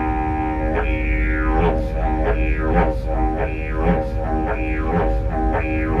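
Didgeridoo (yidaki) played: a steady low drone whose tone sweeps and falls in a rhythm that repeats about once a second.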